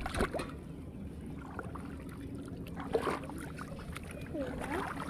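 Shallow muddy water splashing and sloshing as hands and feet move through it, with two sharper splashes, one near the start and one about three seconds in, over a steady low hum.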